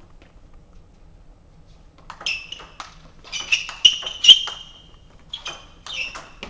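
Table tennis ball clicking off the table and the rackets in a short rally: a quick run of sharp pings starting about two seconds in, loudest near the middle.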